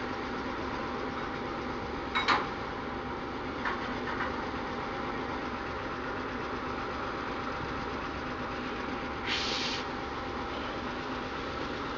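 Diesel shunting locomotive's engine running steadily at idle. A sharp clank comes about two seconds in, two lighter knocks follow around four seconds, and a short hiss of about half a second comes near the end.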